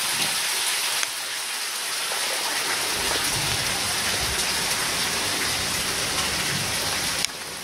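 Meltwater dripping and running beneath the ice at the Bossons glacier's snout, a steady hiss of many drops and trickles. A low rumble joins about three seconds in, and the level drops suddenly just before the end.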